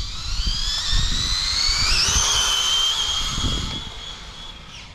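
Arrma Typhon TLR electric RC buggy at full throttle: its brushless motor and drivetrain whine rises in pitch for about two seconds as it accelerates. The whine then holds steady and fades as the buggy speeds away.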